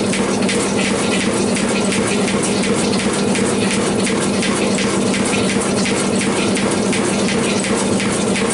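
Metal shaper cutting two workpieces at 1 mm depth of cut, running at 160 strokes a minute: a steady machine hum under a dense hiss with fine, rapid ticking.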